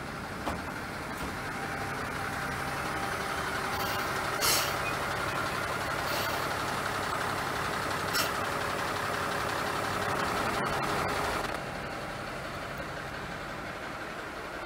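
Diesel railcar's engine running close by, a steady hum with a hissing layer above it, with a short sharp hiss about four and a half seconds in and a lighter one about eight seconds in. The engine noise drops suddenly about eleven and a half seconds in and carries on more quietly.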